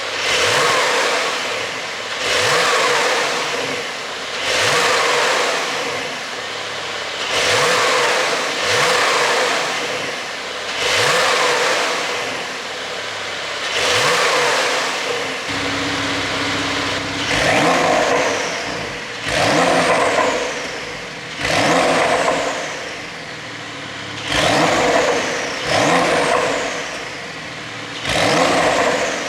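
Porsche 911 Carrera S (992) twin-turbo flat-six, ECU-tuned for exhaust pops, revved in short blips from idle about every two seconds, about a dozen times. Each blip rises in pitch and falls back to idle.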